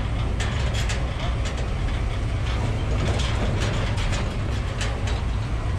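Vehicle engine running with a steady low rumble, with scattered light clicks and rattles from the metal feeding cage.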